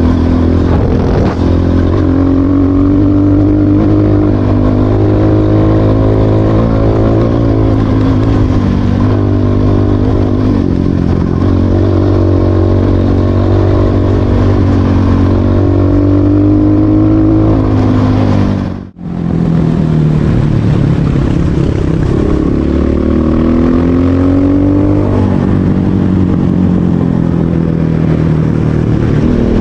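250cc dirt bike engine heard close up from the rider's helmet camera, revving up and dropping back again and again as the bike accelerates through the gears. The sound cuts out for an instant about two-thirds of the way through, then the engine carries on.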